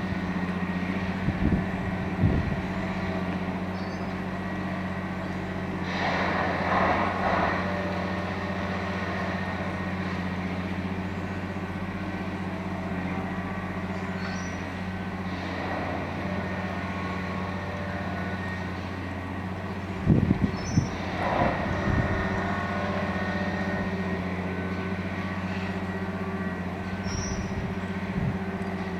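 Multiple tie tamper track maintenance machine running steadily on rails, with louder bursts of noise and low thumps every several seconds, about 6, 15 and 20 seconds in.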